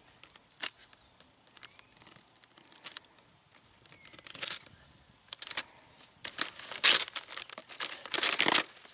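Tape being peeled and torn off a foam archery target, with the paper sheet under it crinkling. There are scattered rustles at first, then several louder rips in the last few seconds.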